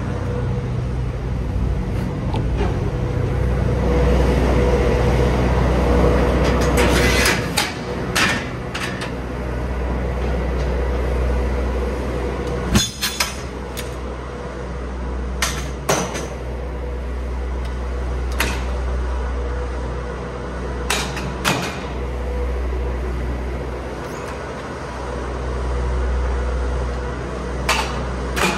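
MAN TGX truck's diesel engine running steadily with a low hum. Sharp knocks and clunks come every few seconds, a cluster of them about a quarter of the way in.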